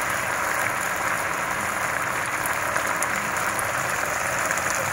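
Chilli-ketchup and water sauce bubbling and sizzling in a pan around simmering fish, a steady hiss.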